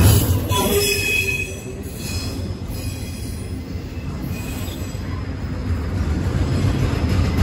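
Double-stack intermodal freight train's well cars rolling past, wheels squealing on the rail with thin high tones for the first second and a half. The sound then settles into quieter, steady wheel noise that grows a little louder near the end.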